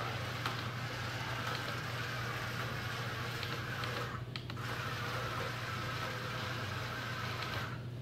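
Roomba Discovery robot vacuum's motors running as it drives across the floor, with a short break just after four seconds; the motor noise cuts off near the end as the robot stops.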